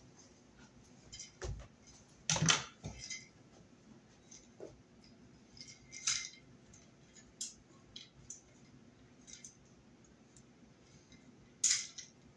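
Irregular small clicks, taps and rustles of hands handling a plastic Honeywell CT410A electric-heater thermostat and its wire leads, with a louder knock about two seconds in and a sharp clack near the end.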